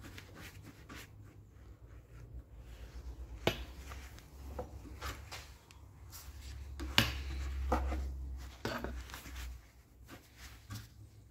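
Metal tools clinking, knocking and scraping while a wrench is worked on a seized, broken fitting on an air compressor. There are scattered small clicks, a sharp knock about three and a half seconds in, and a louder one about seven seconds in, with a low rumble under the handling around the middle.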